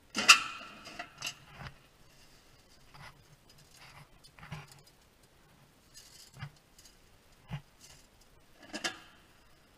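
A sharp metallic clank with brief ringing near the start, then scattered knocks, scrapes and soft rustles. This is the granulator's metal collection bin and its glass-filled nylon regrind being handled by gloved hands.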